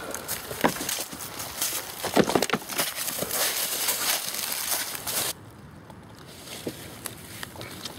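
Footsteps running and scuffling through deep dry fallen leaves, a dense crunching and rustling. It cuts off abruptly about five seconds in, leaving only a few faint rustles.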